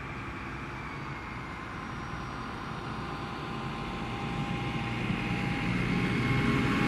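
Diesel railcar, a Stadler Regio-Shuttle RS1, approaching under power: its engine drone and a thin whine grow steadily louder as it draws near.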